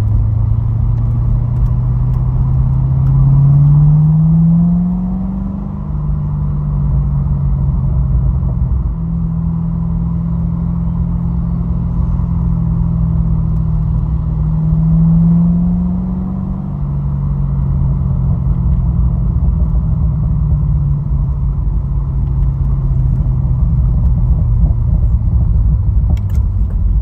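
A C6 Corvette's 6.2-litre LS3 V8 heard from inside the cabin while driving at low speed, with a steady low rumble. Its pitch climbs twice under acceleration and drops back after each climb.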